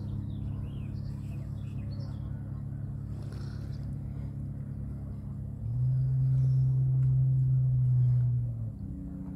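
Low, steady drone of a boat's engine on the river, swelling louder for about three seconds past the middle before easing back. Faint bird chirps sound over it.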